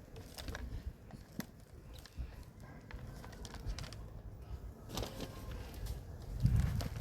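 Handling and filling sounds: scattered light rustles, crackles and small knocks, as of compost being scooped and tipped into a plastic planter tier, with low rumbling bumps from handling near the end.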